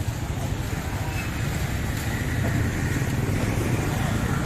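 A motor vehicle engine running steadily with a low, rapid throb.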